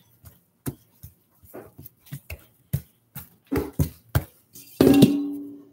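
Scattered clicks and knocks of kitchen utensils handled on a counter, with one louder clatter near the end that rings briefly as it fades.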